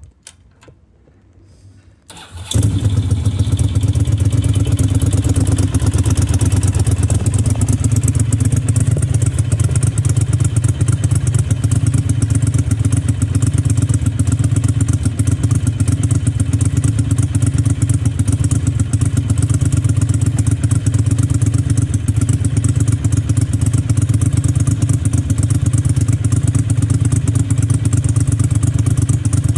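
A 1999 Ducati Monster M600's air-cooled V-twin engine starts about two seconds in, then runs steadily and loudly.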